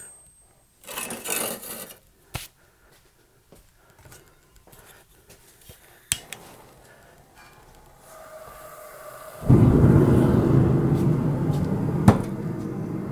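Metal being handled, with a scrape and a few sharp knocks, then a workshop machine comes up at about nine and a half seconds and runs steadily with a low hum and a hiss.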